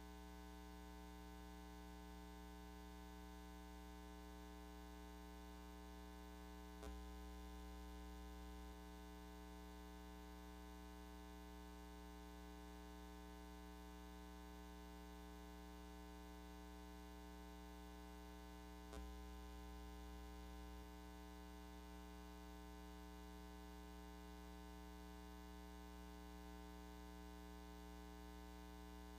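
Faint, steady electrical mains hum with many overtones. Two faint clicks come about 7 and 19 seconds in, each followed by a brief swell of the low hum.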